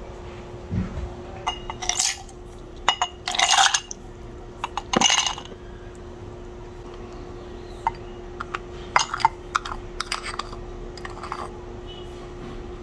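Ice cubes clattering into a tall glass mug in a few loud bursts, followed by lighter clinks of a spoon against the glass. A faint steady hum runs underneath.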